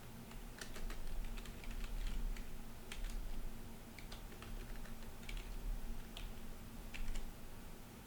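Typing on a computer keyboard: quick, irregular key clicks over a low steady hum.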